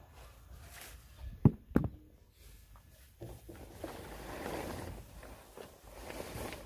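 A synthetic car cover rustling and crumpling as it is pulled off the car and bundled up, after two sharp knocks about a second and a half in.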